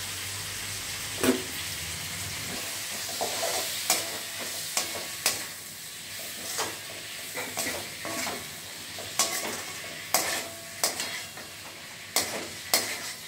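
Onions and green chillies sizzling in oil and freshly added soy sauce in a stainless steel kadai, stirred with a steel ladle that scrapes and knocks against the pan at irregular moments, the sharpest knock about a second in.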